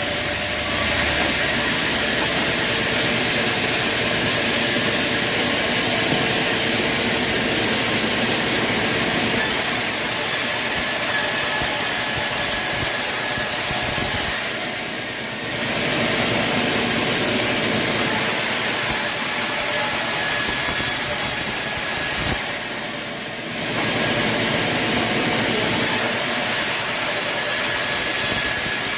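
Sawmill saw cutting through wood, a loud steady noise that eases off briefly twice, about halfway through and again near three-quarters of the way.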